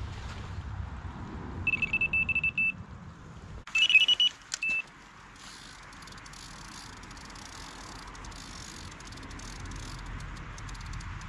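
Delkim electronic bite alarm on a rod pod beeping as line runs over its sensor: a rapid string of beeps for about a second, then a louder short burst of beeps and a single beep about a second later. After that a steady hiss with faint fast ticking.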